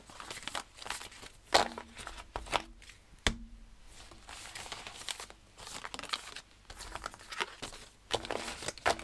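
Paper oracle cards being swept together across a table mat and shuffled by hand: a continuous rustling and sliding of card stock, broken by scattered sharp snaps of cards knocking together, the loudest about a second and a half in.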